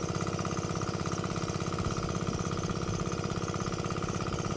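Engine idling close by, a steady, even pulse of about ten beats a second.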